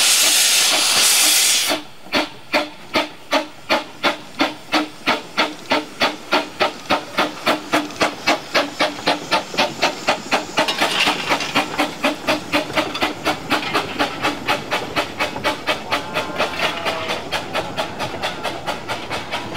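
Miniature 12¼-inch gauge steam locomotive Mariloo pulling away: a loud hiss of steam from the open cylinder drain cocks for about the first two seconds, then sharp exhaust beats that quicken from about two to four a second as it gathers speed. The beats grow less distinct near the end.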